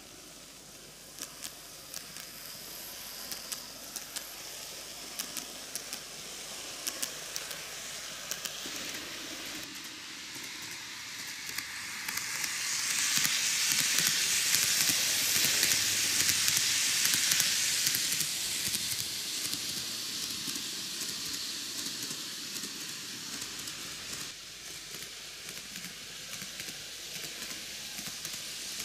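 N-gauge model train (TOMIX Kintetsu 80000 series Hinotori, six cars) running on model track: a steady hiss of wheels and drive that swells to its loudest as the train passes close by about halfway through, then fades as it runs away. Light clicks sound through the first third.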